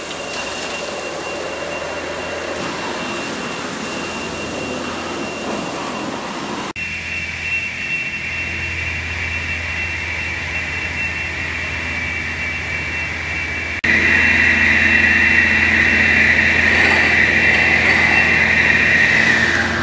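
Vactor truck vacuum pulling through its suction hose while it sucks out a grated trench drain: a steady rushing noise with a high whistle over a low hum. It jumps up abruptly about a third of the way in, then again, much louder, about two-thirds in.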